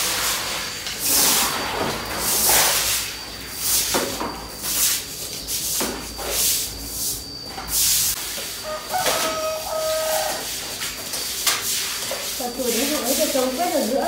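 Stiff push brooms scrubbing a wet concrete floor, a run of swishing strokes about one a second. A voice comes in near the end.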